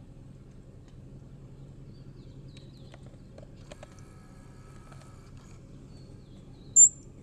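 A single short, very high-pitched animal chirp near the end, much louder than anything else, over a faint steady outdoor background with a low hum and a few faint clicks.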